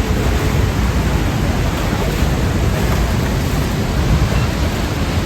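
Rhine Falls waterfall: a steady, loud rush of falling and churning water heard close up.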